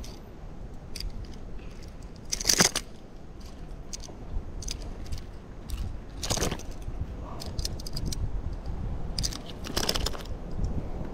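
Close handling noise as a hook and soft-plastic jig are worked out of a small snook's upper lip, the fish held in a lip grip: a run of small crackles and clicks, with three louder brief rustling bursts about four seconds apart.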